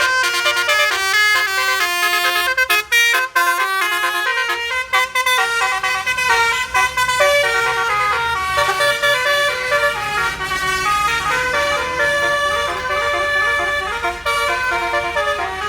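Indonesian bus 'basuri' telolet horn, a multi-trumpet musical air horn, playing a fast tune of rapidly changing notes, with the bus engine running underneath from about five seconds in.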